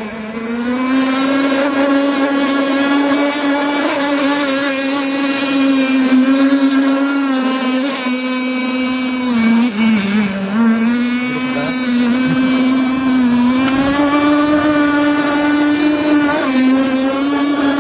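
Radio-controlled Seaducer mono-hull boat running flat out, its OS Max 50 SX Hyper two-stroke glow engine (a helicopter engine converted for marine use) giving a steady high-revving whine. The pitch dips briefly a few times in the second half.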